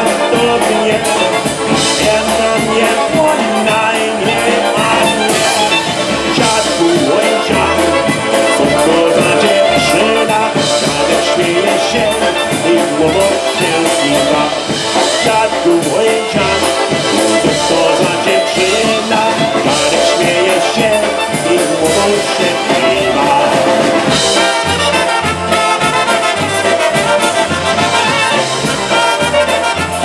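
Live polka band playing a polka: clarinet and trumpets over accordion and drums, with a steady low bass beat.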